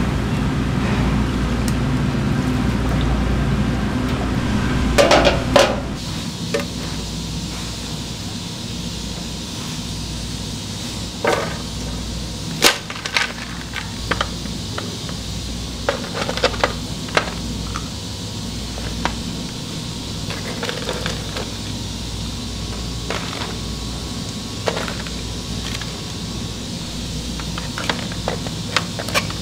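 Scattered clinks and knocks of cooking utensils and cookware over a steady low hum, with a louder clatter about five seconds in.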